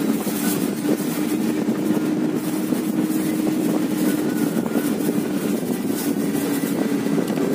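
Car cabin noise while driving: a steady engine drone with a low hum holding one pitch, under the even rush of tyres and wind.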